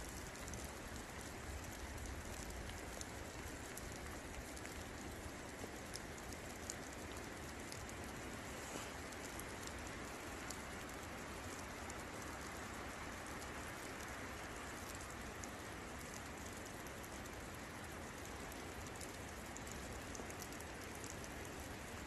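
Steady rain falling: an even hiss with scattered sharp drop ticks.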